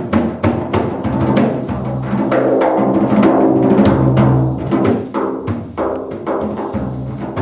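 Instrumental break of a live song: drums struck in a quick, busy pattern over held, pitched chords from an accompanying instrument.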